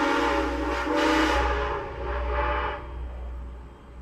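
Steam locomotive's whistle blowing a long blast of several tones sounding together, ending about three seconds in, over the steady rumble of the moving coach.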